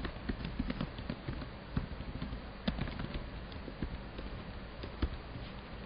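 Computer keyboard typing: an irregular run of light key clicks.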